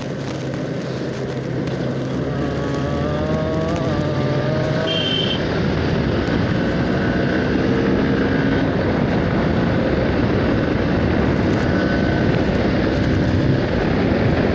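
Motorcycle engine running while riding, its pitch rising and falling with the throttle. There is a short high beep about five seconds in.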